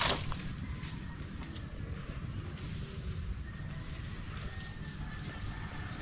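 Steady high-pitched drone of insects, such as cicadas, over a constant low rumble. A faint drawn-out whistling tone comes in about halfway through and falls slightly near the end.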